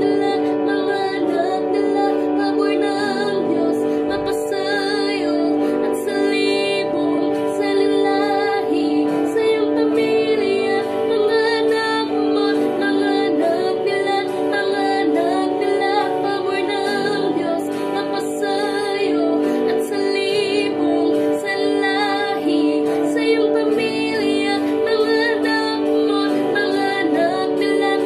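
A woman singing a slow worship ballad in Tagalog over an instrumental backing track, her voice wavering with vibrato on held notes.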